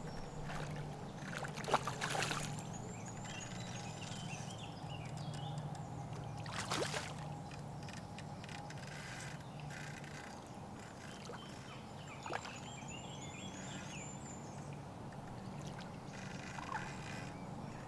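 Lakeside ambience: small birds singing in short warbling phrases over a steady low hum, with a few sharp clicks or knocks about two, seven and twelve seconds in.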